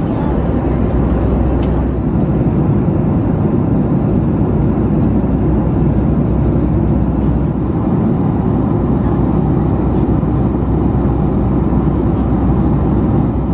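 Boeing 737 MAX cabin noise in flight: a steady low rush of airflow and engine.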